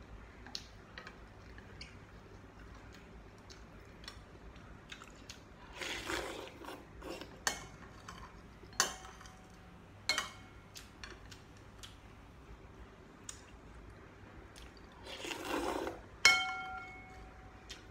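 Noodles slurped from a bowl twice, about six seconds in and again near the end. A metal spoon and chopsticks clink against the ceramic bowl several times, and the loudest clink, just after the second slurp, rings on briefly.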